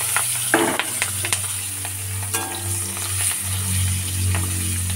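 Sliced onions, green chillies and bay leaves sizzling as they fry in hot oil in an aluminium kadai, with a metal spatula stirring and clicking against the pan. A steady low hum runs underneath.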